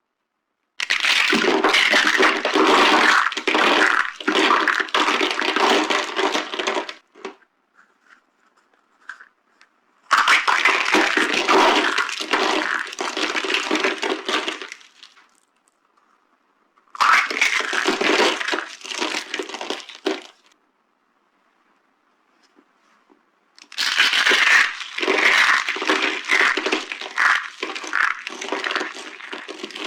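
Dry green soap being crushed, crunching and crackling in four long bouts with short pauses between, each made of many quick sharp cracks.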